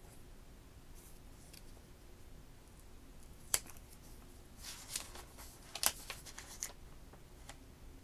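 Thin plastic film packaging crinkling and crackling as a phone's protective plastic sleeve is handled and opened: faint, sparse crackles, a sharp click about three and a half seconds in, and a flurry of crinkles a little later.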